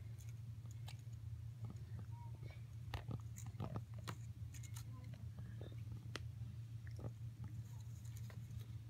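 Cat biting and chewing fresh cat grass: irregular crisp clicks and crunches as the blades are torn and chewed, thickest about three to four seconds in, over a steady low hum.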